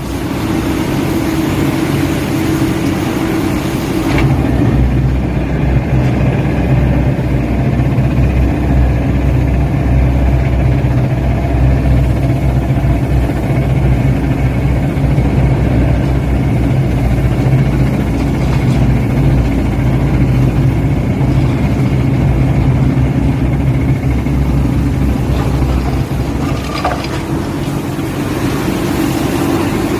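Heavy machinery of a percussion rotary drilling (PRD) rig running steadily with a low, even hum, with a couple of brief knocks, one about four seconds in and one near the end.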